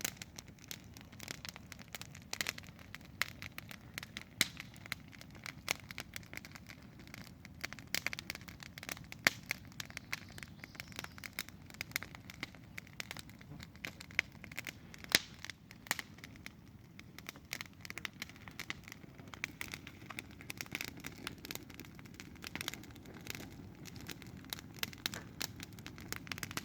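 Campfire burning: irregular sharp crackles and pops of burning wood over a low steady rush of flames.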